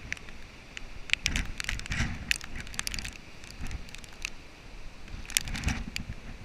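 Hurricane wind gusting across the microphone, a rumble that swells about a second in and again near the end, with many scattered sharp crackles and ticks.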